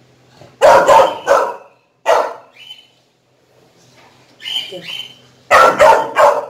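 A puppy barking in short, sharp runs: a quick volley of barks about a second in, a single bark at two seconds, softer yaps around four and a half seconds and another loud volley near the end.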